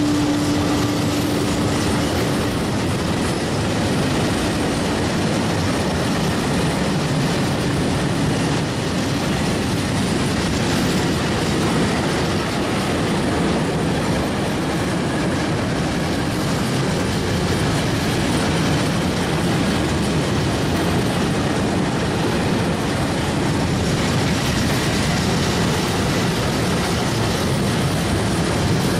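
Freight train of open high-sided wagons rolling past close by, a steady rumble of steel wheels on rail. A humming tone from the electric locomotive that has just passed fades out in the first couple of seconds.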